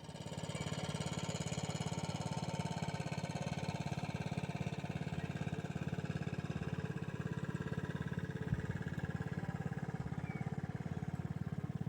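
Small boat's engine running steadily with a fast, even putter.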